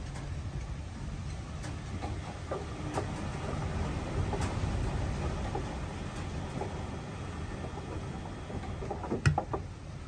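Beko WMB front-loading washing machine tumbling a wash: a steady low rumble from the turning drum with water sloshing, and scattered knocks as the vacuum cleaner hoses tumble, the loudest just after nine seconds in.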